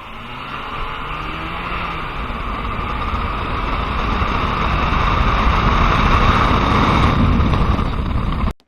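A car on the move, its engine and rushing road and wind noise growing steadily louder over several seconds, then cutting off abruptly near the end.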